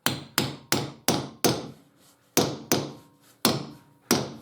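Hammer blows driving a coach bolt up into a wooden bench board, about nine sharp strikes. They come quickly at first, then pause around two seconds in before a few slower blows.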